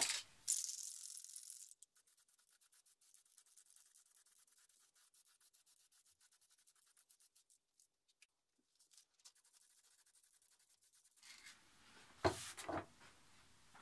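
Aerosol can of spray adhesive hissing for about a second and a half near the start, then near quiet, then paper sheets rustling as they are handled near the end.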